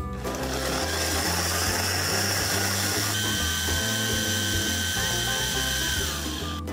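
Electric food processor running, its blade chopping green peppers and celery into a paste: a steady motor whine that shifts to a lower pitch about halfway through, then stops near the end.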